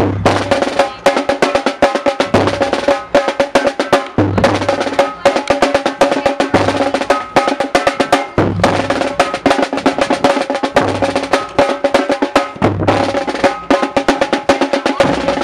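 Marching band drumline playing a cadence: rapid marching snare drum strokes and rolls over deeper drum hits that come every second or two.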